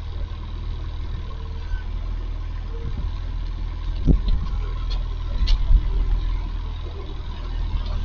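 An engine idling steadily with a low hum, with a few faint knocks about four and five and a half seconds in.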